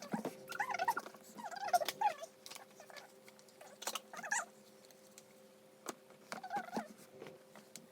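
Cardboard box and packaging being handled: scattered clicks and taps with several short squeaks of rubbing, over a faint steady hum.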